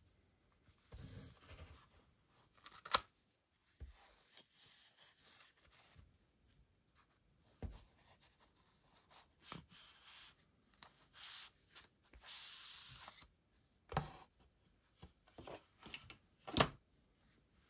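Cardboard and paper packaging of an Apple Watch handled with cloth gloves: a Sport Band box opened and its card flaps folded back, then a paper insert lifted off the watch box. Scattered soft taps and clicks, a short rustle of sliding paper about two-thirds of the way in, and a sharp tap near the end.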